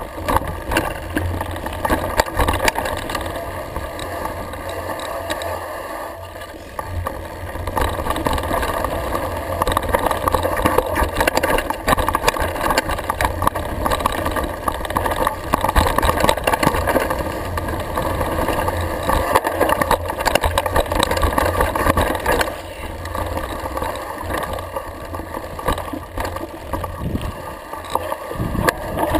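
Mountain bike descending a rough forest dirt trail, heard on a GoPro: a steady wind rumble on the microphone with constant rattling and clatter from the bike and its tyres on the dirt, easing briefly about six seconds in.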